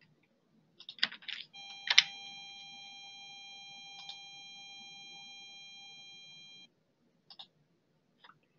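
Computer keyboard and mouse clicks in short clusters. A steady electronic tone, several pitches sounding together, starts about a second and a half in and holds for about five seconds before cutting off. A couple more clicks come near the end.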